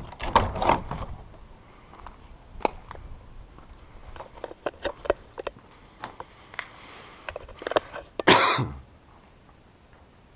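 Old wooden garage doors being pushed open with loud knocks and scrapes in the first second, then scattered footsteps and small crunches on a straw-strewn floor. A short loud noisy burst comes about eight seconds in.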